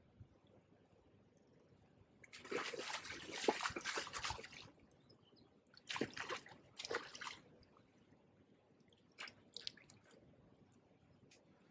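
A hooked barbel splashing and thrashing at the water's surface, in irregular bursts: a long one about two seconds in, two short ones around six and seven seconds, and a weaker one near the end, as it is played in toward the landing net.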